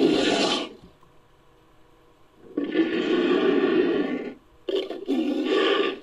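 Fan-made creature roar sound effects for an imaginary Homotherium–Megalosaurus hybrid, built by mixing existing Megalosaurus and Homotherium roar sounds. One roar dies away within the first second. A second roar lasts about two seconds, then a short burst comes, then a third roar ends just before the close.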